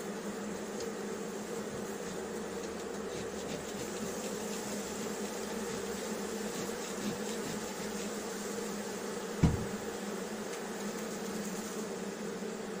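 Honeybee colony humming steadily from an opened hive during a winter inspection. A single dull bump about three-quarters of the way through.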